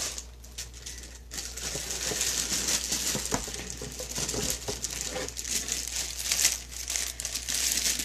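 Clear plastic wrapping crinkling and rustling as a boxed wax warmer is pulled out and unwrapped. The rustling starts about a second in and keeps on, full of small crackles.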